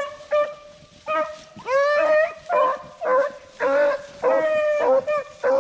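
Beagles baying on a rabbit's trail: a string of about ten short, loud barks and bays, one rising in pitch about two seconds in.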